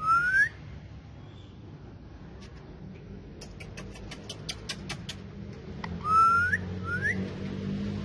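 Indian ringneck parakeet whistling: a loud rising whistle at the start, then a quick run of about eight clicks a few seconds in, and two more rising whistles, the first loud and the second shorter, near the end.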